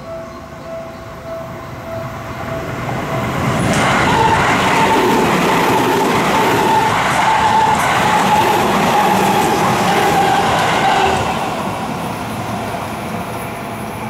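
Japanese level-crossing warning bell ringing in pulses about twice a second, then an electric commuter train passing at speed over the crossing from about four seconds in, loud with a steady whine, fading after about eleven seconds.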